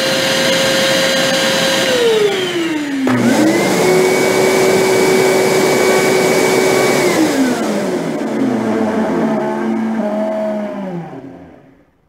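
Two small wet/dry shop vacuums run one after the other for a noise comparison. First the Armor All's motor runs at a steady, higher-pitched whine and winds down about two seconds in. A second later the Shop-Vac 2.5-gallon starts up with a lower whine, runs steadily for about four seconds, then slowly spins down.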